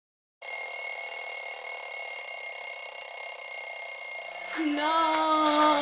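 A smartphone alarm ringing steadily, starting about half a second in. Near the end a woman lets out a long, slightly falling groan as she wakes to it.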